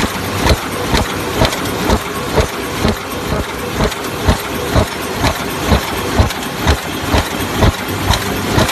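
Paper cup forming machine running, with a steady mechanical clatter and a regular thump about twice a second from each stroke of its cycle.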